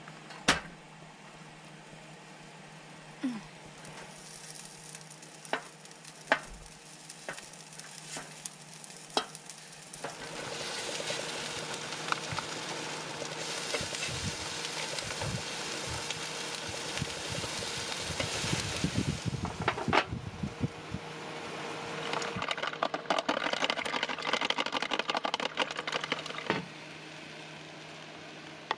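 Rice and chicken sizzling on a hot griddle plate as they are stir-fried with chopsticks into fried rice. The first third holds only scattered sharp taps and clicks. The sizzling starts about a third of the way in, eases briefly past the middle, comes back, and stops shortly before the end.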